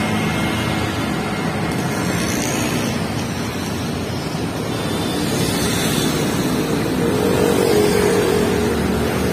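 Busy city road traffic passing close by: motorcycles, auto-rickshaws and cars, a steady rush of engine and tyre noise that grows a little louder about seven seconds in as a vehicle goes past.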